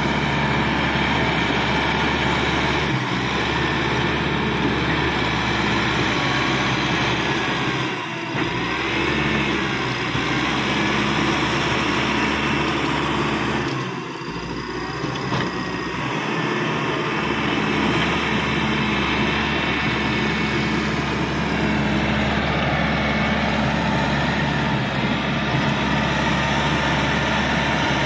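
Caterpillar D5K XL bulldozer's diesel engine running steadily, with brief dips in level about eight and fourteen seconds in.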